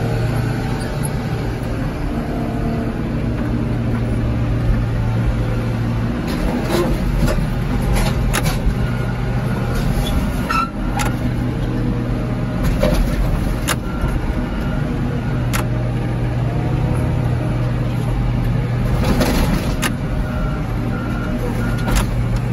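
Heavy equipment engine running steadily while its hydraulic grapple arm moves a scrapped car. Scattered metal clanks and knocks sound as the car body is set down in the car crusher's bed.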